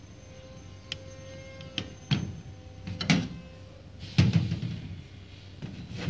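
Irregular knocks and thumps, about six of them, from a smartphone and an opened IR repeater being handled and set down on a desk.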